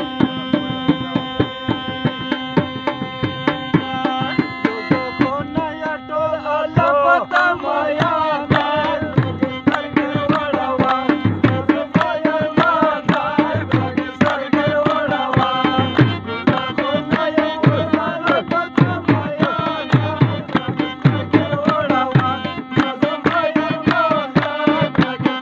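Pashto folk music: a harmonium holding a drone and melody over a quick, steady beat on a two-headed barrel drum. A man's singing voice comes in about six seconds in and carries on over the playing.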